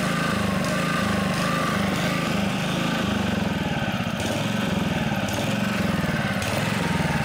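Honda HR215 lawnmower's single-cylinder engine running and surging, its speed rising and falling over and over. The surging is the sign of a fuel delivery problem: obstructed carburetor jets.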